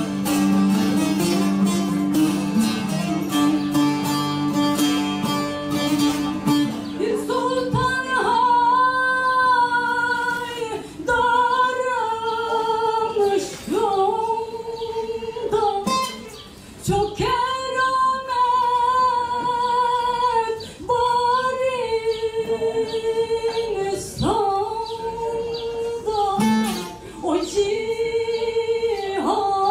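A bağlama (long-necked Turkish saz) played with fast, dense strumming, then about seven seconds in a woman begins singing in long held, wavering phrases while the saz plays only sparsely beneath her voice.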